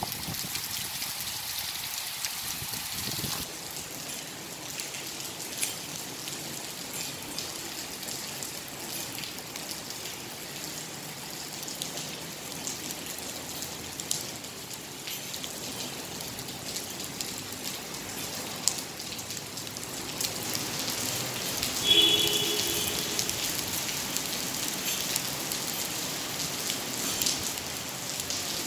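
Heavy monsoon rain falling steadily: a continuous hiss with scattered ticks of drops. About three-quarters of the way through, a short pitched sound lasting about a second rises briefly over the rain.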